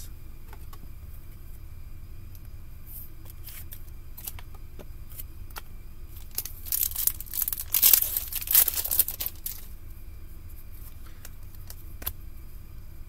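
Crinkling and tearing of a trading card pack's wrapper as hockey cards are handled, loudest for about three seconds in the middle, with light clicks of cards being shuffled.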